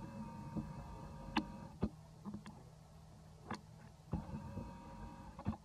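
Twigs and branches clicking and snapping as monkeys climb through a tree: about eight sharp, irregular snaps over a faint steady hum.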